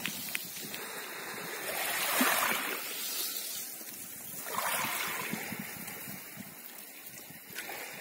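Small waves of the calm Sea of Azov lapping and washing over a shell-grit beach, the wash swelling about two seconds in and again near the middle.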